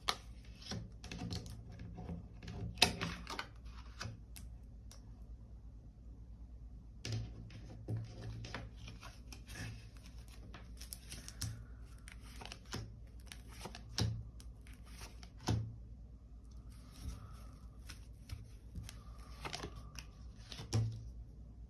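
Tarot cards being handled and laid down on a table: scattered soft taps, flicks and brief rustles of card stock, over a faint steady low hum.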